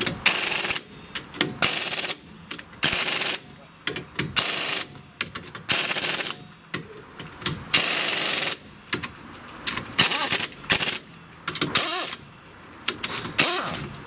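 A ratchet driving two long M12×1.5 bolts through a Daewoo Lanos front hub flange, one bolt after the other, in repeated rattling bursts about a second long with short pauses between them. The bolts bear on the steering knuckle and press the wheel hub out of its bearing.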